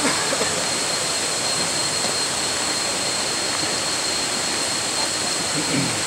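Steady rush of a waterfall cascading into pools, with a thin steady high tone above it.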